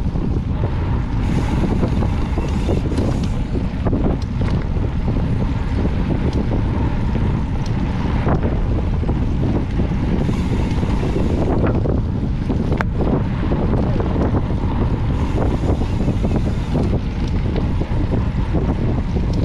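Wind buffeting the microphone of a handlebar-mounted action camera on a mountain bike riding a dirt singletrack: a steady loud rumble, with a few sharp clicks and rattles from the bike over the trail.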